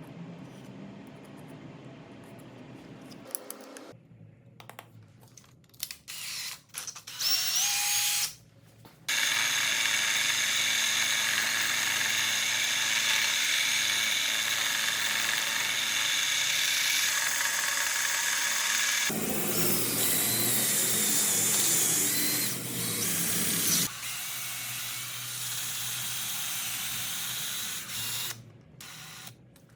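A handheld power tool's electric motor running with a steady whine, first briefly and then for about ten seconds. It turns rougher and noisier for a few seconds, runs on more quietly, and stops near the end.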